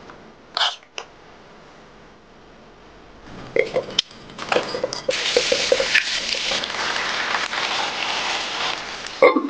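Hot oil sizzling steadily in a clay pot as ginger goes in, starting with a few sharp crackles. A light clink of a spoon on a bowl comes about half a second in, and a sharp knock comes near the end.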